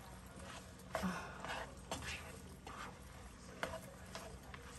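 A plastic spatula scraping and tapping against a nonstick frying pan while stirring ground pork and carrots. There are about half a dozen short, irregular strokes.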